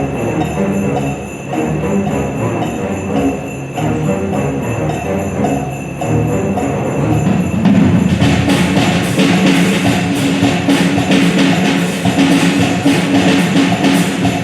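Symphony orchestra playing over a steady percussion beat; the music swells louder and fuller about halfway through.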